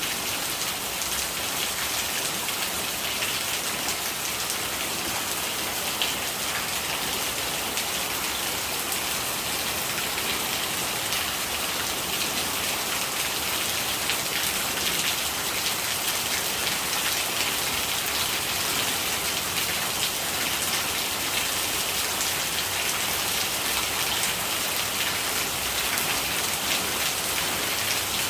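Steady rain falling, a dense patter of drops with an even hiss and no let-up.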